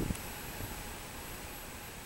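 Cicadas in the trees: a steady, even hiss with a thin high tone held throughout. A brief low thump at the very start.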